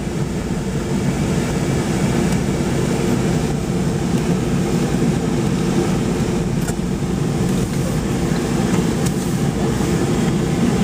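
Steady low rumble of a car driving, its engine and tyres heard from inside the cabin.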